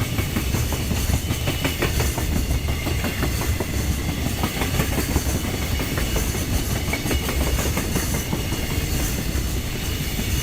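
Freight train's wagons rolling past at speed, the wheels clattering steadily over the rail joints over a continuous low rumble.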